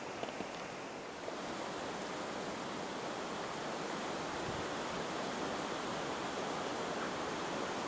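Rushing river water: a steady, even hiss that grows slightly louder about a second in.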